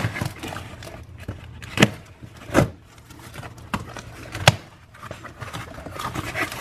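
A cardboard box being opened and its packaging handled: light rustling and scraping, with about four sharp knocks spread through.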